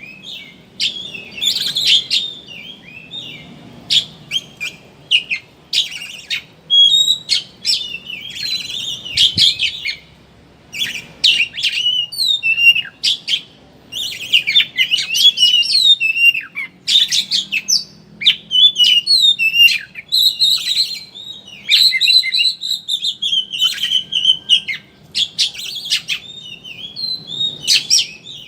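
Oriental magpie-robin (kacer) singing a fast, busy 'ngeriwik' song: quick runs of high chirps, whistled glides and sharp clicks with only brief pauses. This is a lure song of the kind keepers play to set other kacer singing open-beaked.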